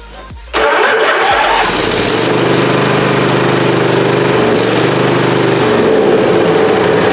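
A Craftsman garden tractor's Briggs & Stratton Intek V-twin engine is started with the key on freshly rewired starter circuits, catching about half a second in and then running at a steady idle.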